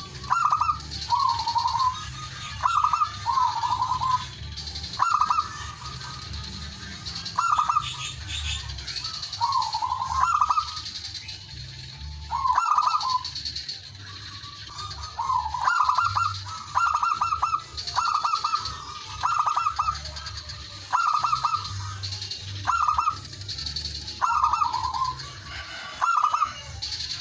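Male zebra dove (perkutut) cooing: short rolling phrases repeated about once a second, with a brief pause about halfway through.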